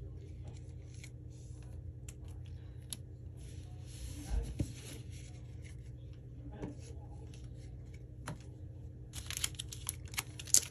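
Trading cards being handled: faint slides and taps of cards with a soft thump about four seconds in, then the crinkle of a foil booster pack wrapper near the end as the pack is picked up. A steady low hum runs underneath.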